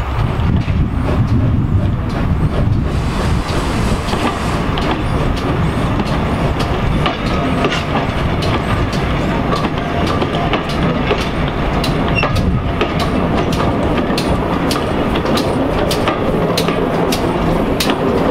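GWR 6400 pannier tank No. 6412 and its auto coaches rolling slowly past, a steady rumble of the train running in. The wheels click over the rail joints, the clicks coming more often and more distinctly in the second half.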